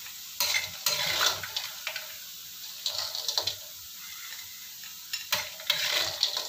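Metal ladle scraping a wok as crisp fried taro cubes are scooped out and tipped into a bowl, the hard pieces clattering, in three bursts over a light sizzle of oil.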